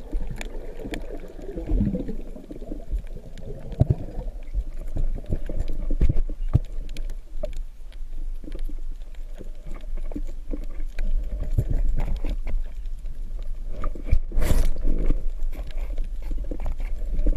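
Underwater sound heard through a camera housing: a muffled low rumble of moving water with scattered clicks and knocks, and a louder rush about fourteen seconds in.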